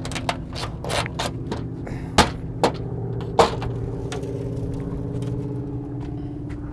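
A screwdriver working stuck, rusted screws on a Cessna 310's aluminium engine cowling: a string of sharp metallic clicks and scrapes, two louder ones about two and three and a half seconds in. Under it runs a steady low engine hum.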